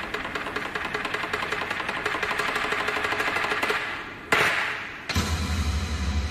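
Anime sound effects: a fast rattling rumble, then a sudden loud whooshing burst about four seconds in, followed by a heavy deep rumble as giant toads land in billowing smoke.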